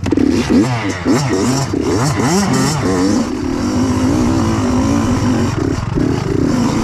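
Kawasaki KX85 85cc two-stroke single-cylinder dirt bike engine revving sharply up and down in quick bursts for the first few seconds, then running at a steadier, wavering pitch as it pulls up the trail.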